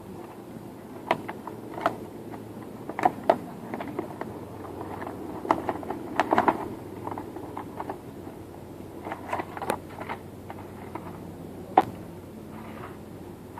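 Baby toys being handled: scattered clicks and light knocks at irregular times, over a steady low hum.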